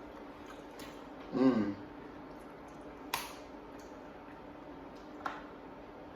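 Quiet eating with two sharp cracks, about three and five seconds in, from crab-leg shells being broken by hand. There is a short hummed vocal sound about a second and a half in, and a faint steady hum underneath.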